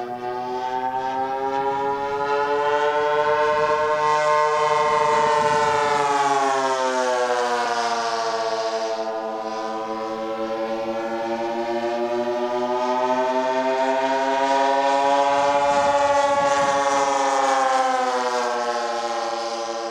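Twin piston engines of a radio-controlled OV-10 Bronco model running in flight, a steady drone whose pitch slowly rises and falls. It swells louder twice as the plane passes.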